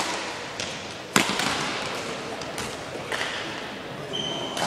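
Badminton rackets striking a shuttlecock in a rally: several sharp cracks a second or so apart, the loudest about a second in, echoing in a large sports hall. A brief high squeak comes near the end.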